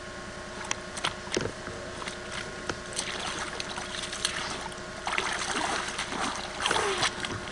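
Wading from a rocky shore into a shallow lake in waders: scattered clicks and knocks of boots on stones, then water swishing and splashing around the legs from about three seconds in, growing stronger after five seconds.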